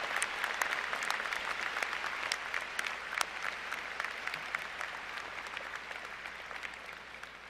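A large crowd applauding, the clapping slowly dying down.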